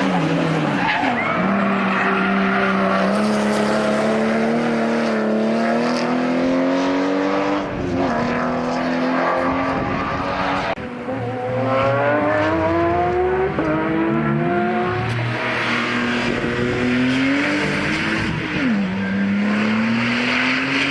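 Porsche 911's flat-six engine revving hard through the gears: the pitch climbs over several seconds and drops back sharply at each shift or lift, several times over.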